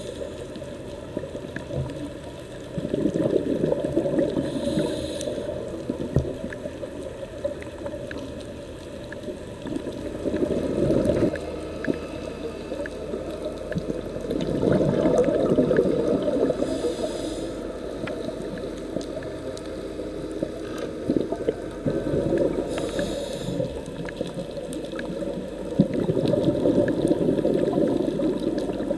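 Scuba diver breathing through a regulator underwater: several long bubbling exhalations, each with a brief hissing inhalation between them.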